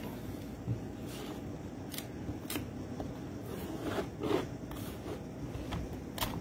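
Potato being pushed across a mandoline slicer's blade: a run of short, irregularly spaced scraping swipes as slices are cut, the loudest about four seconds in.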